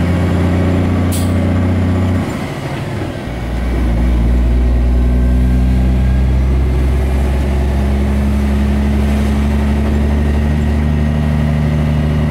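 Kenworth truck's diesel engine running under load inside the cab, with a brief hiss about a second in. About two seconds in the engine note drops away for roughly a second, then comes back lower in pitch and louder, as with a shift up a gear, and it pulls steadily after that.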